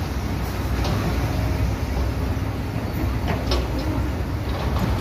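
Diesel engines of excavators and dump trucks running together in a steady low rumble, with a few light knocks of machinery.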